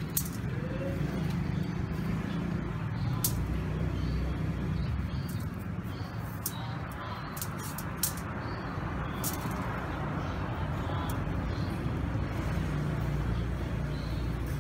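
Steady low rumble with a few scattered sharp clicks.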